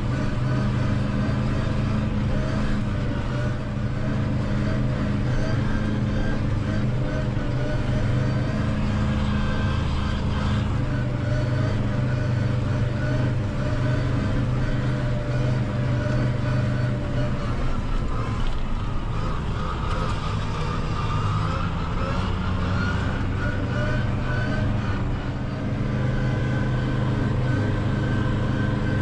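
Valtra N 121 tractor's diesel engine running steadily under load, heard inside the cab, together with the hum of the PTO-driven Claas Corto 290 FN front drum mower while mowing grass. The pitch shifts slightly and the level dips briefly past the middle.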